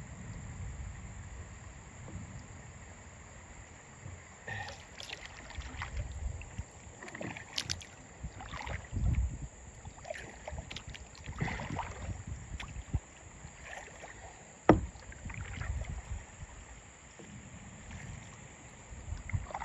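Kayak paddling: the paddle dips and splashes in irregular strokes, with knocks of the paddle against the kayak, one sharp and loud about three-quarters of the way through, over a low rumble.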